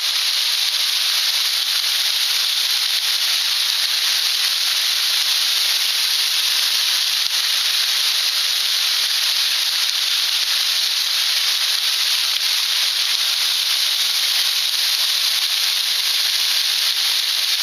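Steady, loud hiss of a waterfall pouring down close to the microphone, from just underneath the falling water.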